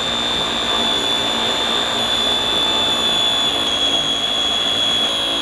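Blender motor of a combined steamer-blender baby food maker running steadily with a high whine, puréeing steamed potato and milk into mash.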